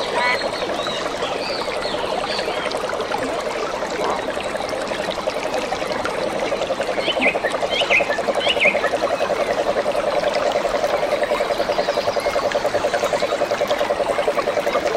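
Frogs calling in a rapid, continuous pulsed trill, which grows louder about halfway through. A few short higher chirps come in the middle.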